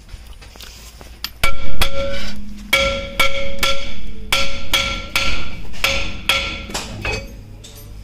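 Rusted rear brake drum of a 2007 Tata Safari being struck repeatedly with a hammer to knock it loose. The run of sharp metallic strikes starts about a second and a half in, in quick clusters, and each strike rings on with a bell-like tone.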